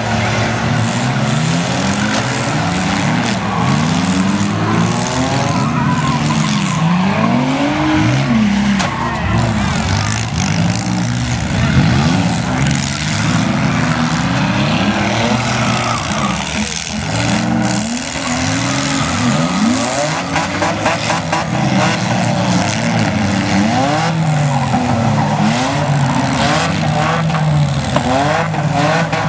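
Several six-cylinder demolition derby cars revving hard at once, their engine notes rising and falling over one another, with occasional bangs from cars hitting each other.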